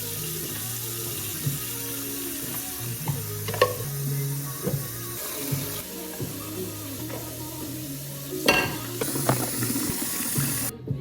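Water running steadily from a tap into a sink, cutting off suddenly near the end. Background music with a low, stepping bass line plays under it.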